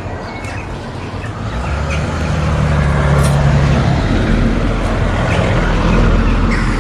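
A motor vehicle passing close by: a low engine rumble and hum that builds over a couple of seconds, holds, then eases near the end.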